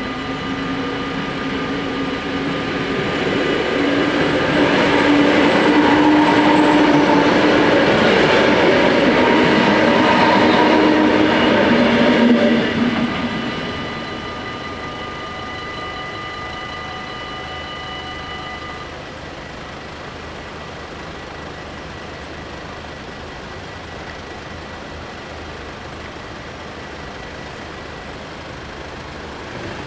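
An electric passenger train passes over a level crossing, building up, loudest for several seconds, then fading quickly about halfway through. Steady ringing from the crossing's warning bells runs under it and stops about two-thirds of the way in.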